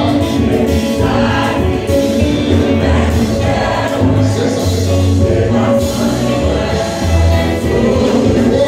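Church congregation singing a gospel song together with musical accompaniment, a steady low bass pulsing underneath the many voices.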